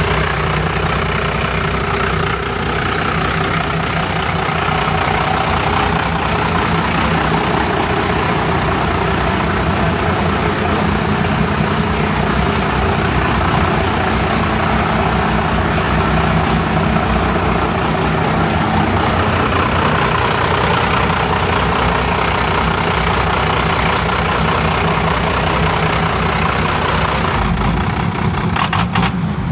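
A motor vehicle's engine running steadily and loud, with an even low pulse. The sound changes abruptly near the end.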